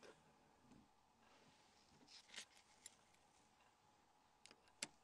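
Near silence, broken by a few faint ticks and short scrapes of a small Torx driver working the phone's tiny screws.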